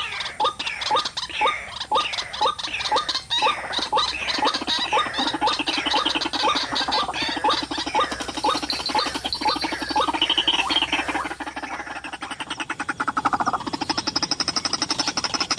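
White-breasted waterhen calling: repeated croaking 'kru-ak' notes about two a second, breaking into a fast, continuous chattering run about four seconds in.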